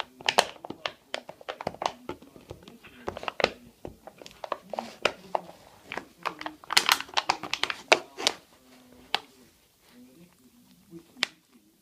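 A West Highland white terrier worrying at a small jar, with a quick irregular run of clicks, knocks and crinkles as the jar is pushed, bitten and rattled about. The sounds thin out near the end.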